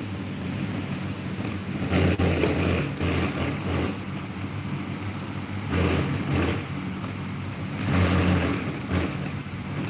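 Electric table fan running: a steady motor hum with rushing air that swells loudly every few seconds.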